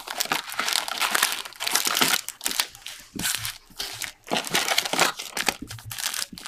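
Foil wrappers of Optic UFC trading card packs crinkling and rustling as they are handled, a continuous stream of short crackles.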